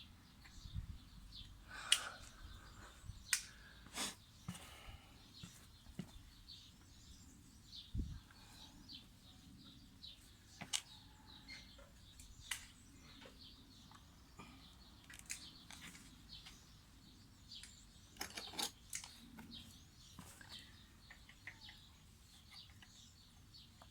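Scattered metallic clinks and knocks of 17 mm wrenches being set on the thin axle nuts of a mountain bike's rear wheel hub, with birds chirping in the background.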